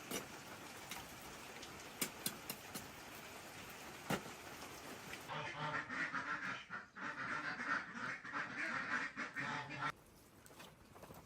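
A steady noisy hiss with a few sharp clicks, then, from about five seconds in, a run of rapid, repeated animal calls that cuts off suddenly near the end.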